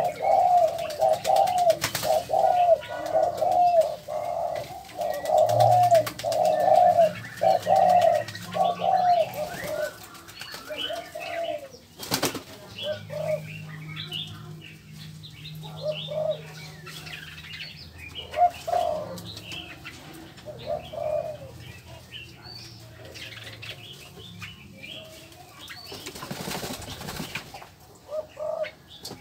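Birds in an aviary calling: a fast run of repeated rising-and-falling calls, about two a second, for the first nine seconds, then scattered single calls. A sharp click comes about twelve seconds in.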